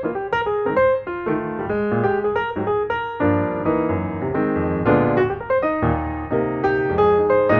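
Solo piano music: a quick melody of struck notes over chords, growing fuller about three seconds in.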